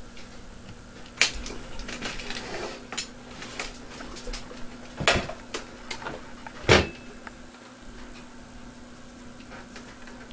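Several sharp knocks and clicks, the loudest about seven seconds in, over a faint steady hum.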